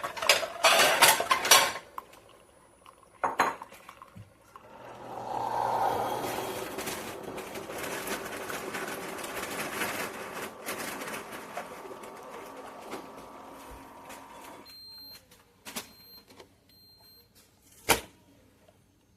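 Hard parts clattering, then a click. A single-serve coffee maker runs with a steady hiss for about ten seconds and stops, then gives three short high beeps, and a sharp click follows.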